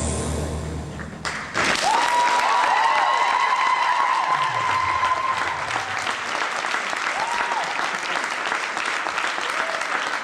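Synthesizer music ends on a rising sweep, cut off about a second and a half in. A large audience then breaks into sustained applause with cheering calls over it.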